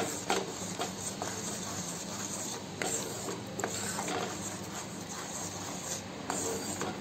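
Wooden spatula stirring cream into a thick masala in a kadhai: soft, irregular scrapes and squelches over a steady hiss, with a faint low hum underneath.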